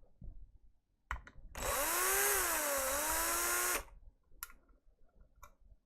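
Small electric screwdriver running for about two seconds as it backs out a case screw, its pitch dipping briefly under load and then recovering. A few light clicks come before and after it.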